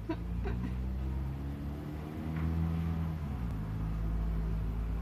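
Steady low mechanical hum with several droning tones, a little louder in the second half, with a few faint short higher sounds near the start and about halfway through.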